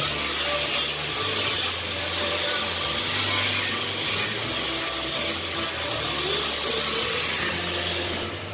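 Rough abrasive scraping on a stainless steel marine exhaust pipe as it is cleaned up for welding, running on with an uneven, rasping rhythm.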